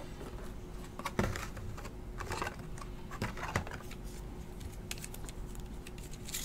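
Light handling of a trading card and clear plastic card holder: a few scattered soft clicks and rustles.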